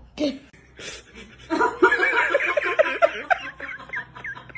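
A person laughing in a quick run of short, pitched ha-ha sounds, starting about a second and a half in.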